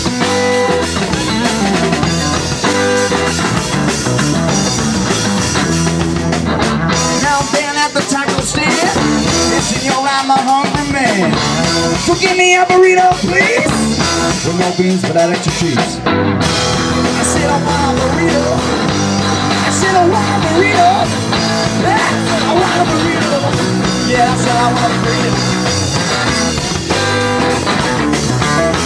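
A rock trio playing live: electric guitar, electric bass and drum kit, loud and steady throughout.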